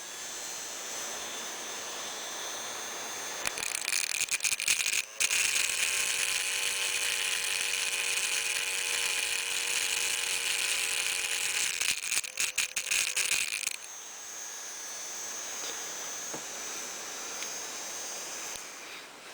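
Miniature PVC air raid siren, a five-port, five-blade chopper spun inside its stator by a small electric motor, giving a steady high-pitched whine, with the chopper still bumping and rattling against the side of the stator. It runs quieter at first, is much louder from about five seconds in for some eight seconds, then drops back to the quieter whine.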